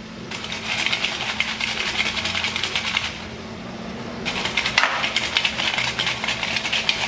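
Fried dough balls and granulated sugar with cinnamon rattling in a bowl as it is shaken to coat them. There are two bouts of quick rattling, with a pause about three seconds in.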